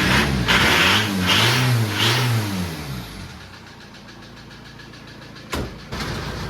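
Volkswagen TDI turbo-diesel engine revved hard three times in quick succession, its pitch rising and falling each time, then falling back to a quieter steady run. The engine knocks, which the owner takes for internal engine problems. Near the end there is a sharp click, then a steady engine run.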